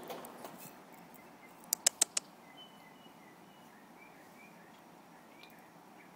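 Kitten eating dry kibble off the floor: a few sharp crunching clicks, four in quick succession about two seconds in. Faint high chirps follow.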